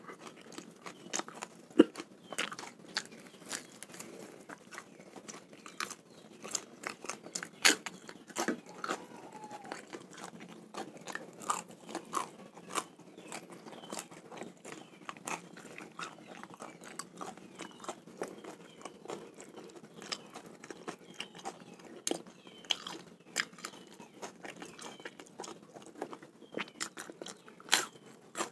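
Close-up chewing and biting of raw, unfried fish: irregular wet crunches and mouth clicks throughout, with a few louder crunches about two seconds in, around eight seconds in and near the end.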